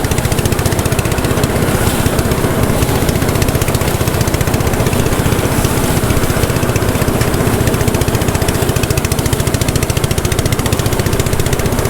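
Small engine running steadily at a constant speed, with a fast, even pulsing beat.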